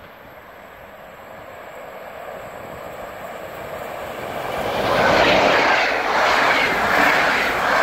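EP07 electric locomotive and its passenger coaches passing through a station at speed. The rushing rail noise grows louder over the first five seconds as the train approaches, then stays loud as the coaches go by close to the track.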